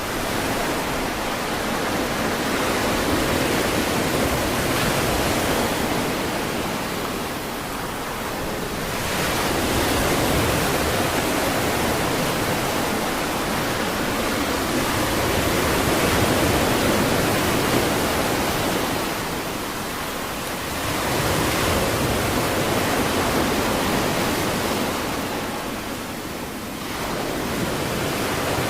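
Ocean surf breaking on a beach: a continuous rushing wash of waves that slowly swells and eases, dipping quieter three times between surges.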